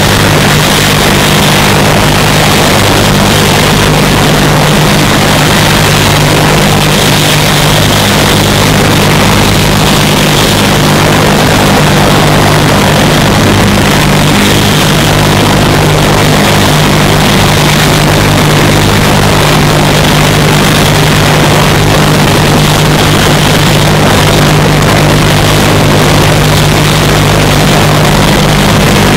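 Helicopter engine running steadily: a loud, unchanging drone with a steady low hum beneath it.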